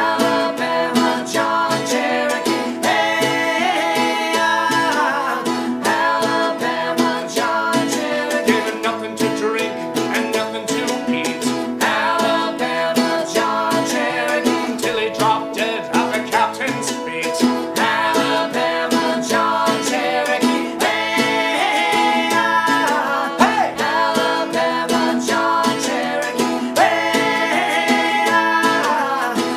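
Acoustic folk band music: mandolin, banjo and acoustic guitar played together at a steady pace.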